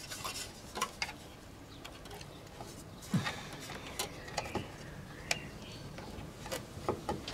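Irregular light clicks and taps of computer case parts being handled, with a dull knock about three seconds in.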